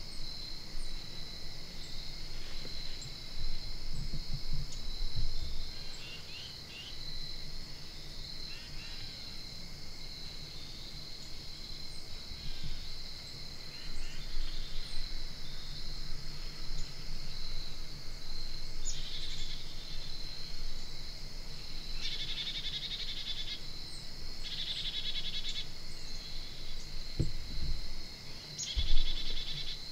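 Chorus of insects in a grassy field: a steady high-pitched chirring, with louder buzzing trills several times in the second half. A few low muffled thumps, the loudest about a second before the end.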